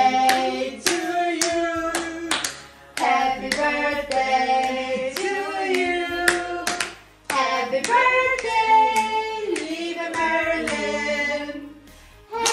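A small group singing a song together while clapping along in time, about two claps a second, with short breaks between the sung lines.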